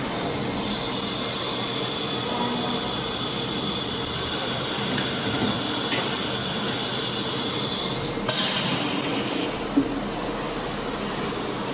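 CNC router running automatically through a tool change, with a steady high whine for about seven seconds, then a sudden loud hiss lasting about a second.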